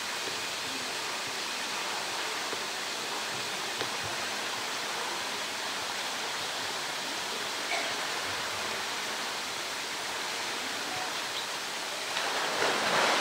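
Steady rush of running water throughout. Near the end, a polar bear plunges head-first into its pool, and a loud splash of churning water rises over it.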